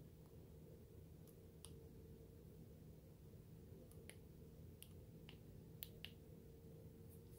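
Faint scattered clicks, about eight, over near-silent room tone as a thumb presses a silicone switch cover into the side switch of a ThruNite TN42 V2 flashlight. The two loudest come close together about six seconds in.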